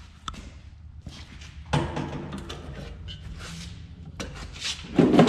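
Metal clicks and knocks as the deck latches and pins on a Walker T25i mower are worked loose by hand, with a louder clunk near the end.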